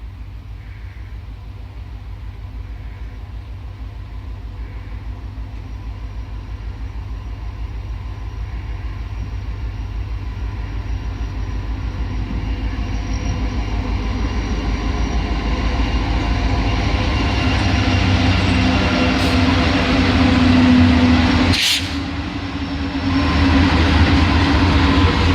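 Norfolk Southern train's diesel locomotives approaching, their low engine rumble building steadily louder. A brief sharp noise sounds about 22 seconds in.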